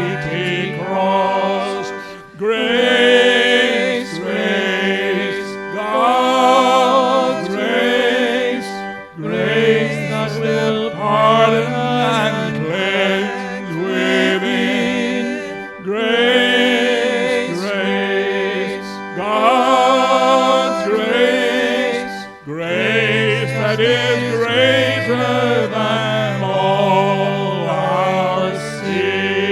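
A hymn sung by a solo voice with vibrato, in phrases a few seconds long, over church organ accompaniment with sustained chords and bass notes.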